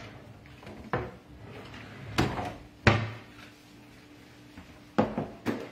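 Lower kitchen cabinet being opened and shut while a container of sugar is taken out: about five separate knocks and bumps, the sharpest about three seconds in.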